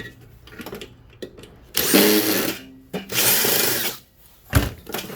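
Power drill spinning in two short runs of about a second each, then a single knock near the end.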